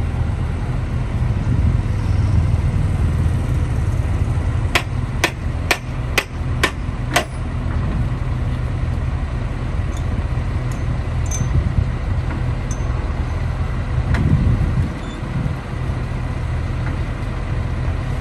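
Diesel engines of a Kobelco SK200 excavator and a loaded dump truck running at idle, a steady low drone. About a quarter of the way in come six sharp metallic knocks, about two a second. An engine swells briefly near the end.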